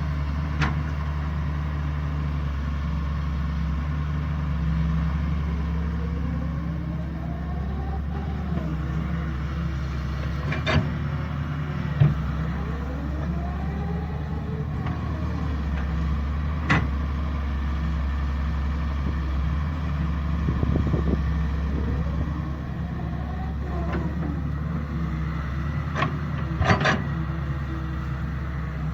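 Doosan hydraulic excavator's diesel engine running steadily under load, its hydraulic whine rising and falling in repeated dig-and-swing cycles about every six seconds. There are occasional sharp metallic clanks, a few close together near the end, as the bucket loads a tractor trailer.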